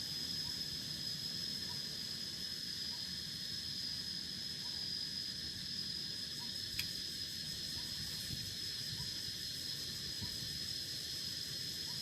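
Crickets trilling steadily at one high pitch over a steady background hiss, with a single sharp click about seven seconds in.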